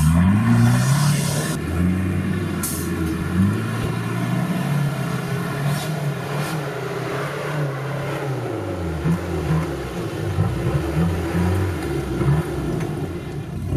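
Off-road 4x4 vehicle engine revving up and down under load, with a few sharp knocks along the way.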